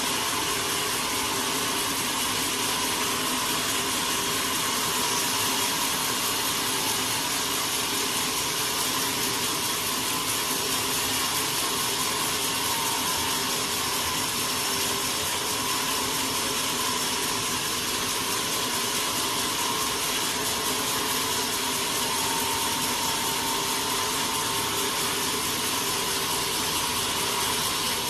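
Sawmill machinery running steadily: a dense, even mechanical noise with a few faint steady tones under it.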